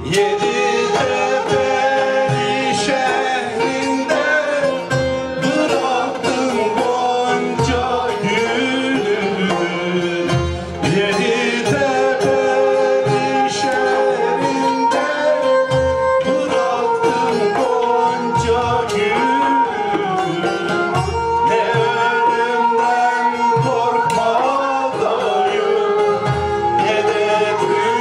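Turkish folk music played live by an ensemble of singers and instruments: a folk song is sung over a melodic accompaniment, with low drum strokes every few seconds.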